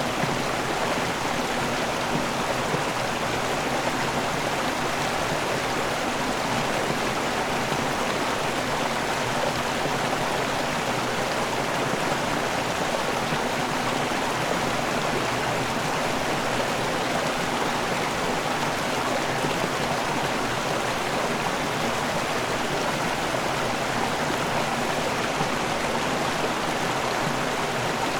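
River water rushing over a waterfall: a steady, unbroken rush with no single splashes standing out.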